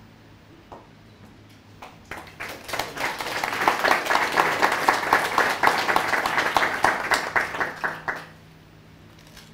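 Audience applauding at the end of a talk: a few scattered claps, then the clapping builds about two seconds in, holds for about six seconds, and dies away near the end.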